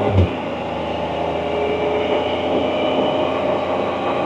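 Can-Am Spyder three-wheeler's engine running steadily under way, with road and wind noise. There is a brief low thump just after the start.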